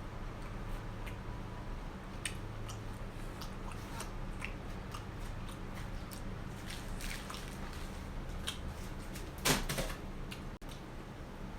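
Close-miked chewing, with irregular sharp crunches of Doritos tortilla chips from a plate of nachos. A single louder, brief sound breaks in near the end.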